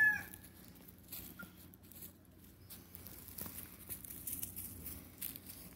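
Faint rustling and light ticking in dry leaves, with the end of a chicken's call at the very start.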